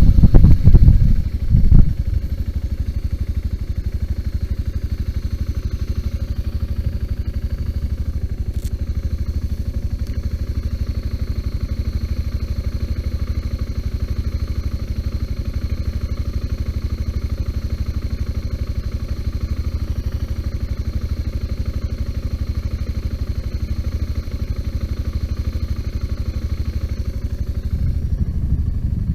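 Loud riding and wind noise for about the first two seconds, then a BMW G 650 GS motorcycle's single-cylinder engine idling steadily with an even beat. It gets a little louder near the end.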